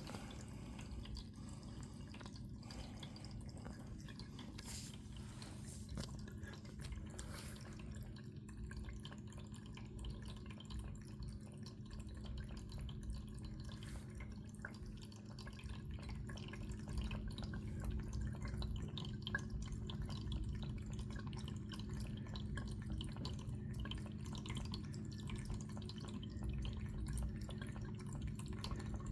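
A cat lapping water, a run of small, quick wet ticks, over a steady low hum.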